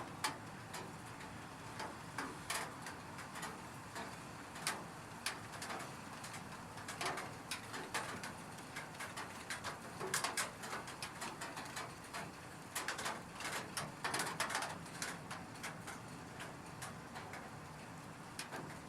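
Rain: a steady hiss with irregular drops tapping sharply on a roof, the taps coming thicker at times.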